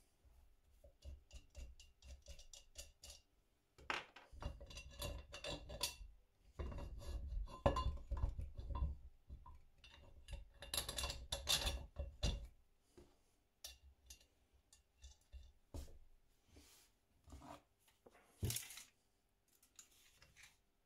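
Small metal parts clinking and rattling as they are handled, in irregular bunches of knocks with a faint ring to some of them.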